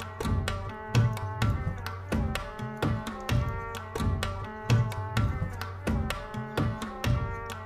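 Background music: rhythmic hand percussion like tabla under sustained melodic notes, with a steady beat.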